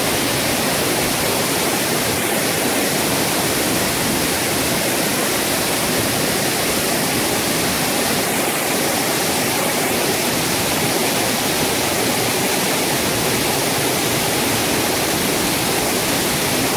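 Waterfall cascading into a plunge pool: a steady rush of falling water.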